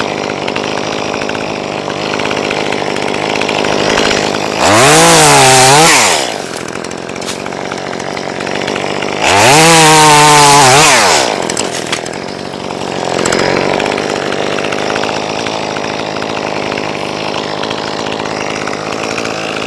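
Chainsaw idling, revved up hard twice for about a second and a half each, the engine pitch climbing and then falling back to idle.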